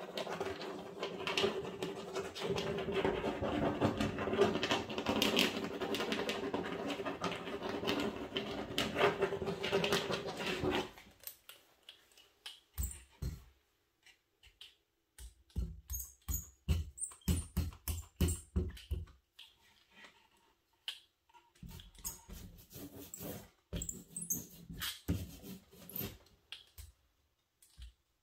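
Paint brayer and brush worked through wet paint on paper. A continuous scrubbing, rolling noise lasts about the first eleven seconds, then gives way to short, separate rolling strokes in quick runs as the brayer goes back and forth over the palette sheet.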